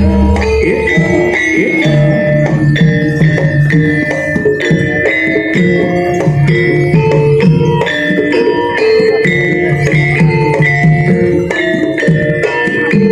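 Jaranan gamelan music: hand-drum strokes over ringing metal percussion notes in a steady, busy rhythm.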